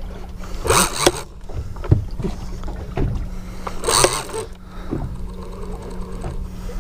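Boat engine running with a steady low hum, with two short rushes of noise about one and four seconds in and a few dull knocks between them.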